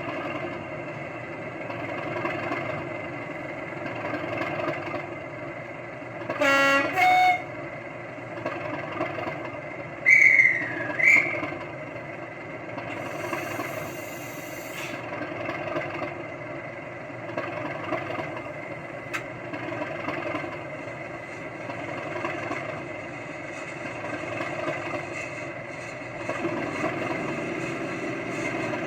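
Model Class 37 locomotive's digital sound decoder playing a recorded English Electric diesel engine running steadily through small speakers. About six seconds in comes a two-note horn blast, lower note then higher. Two short high tones follow a few seconds later, then a brief hiss.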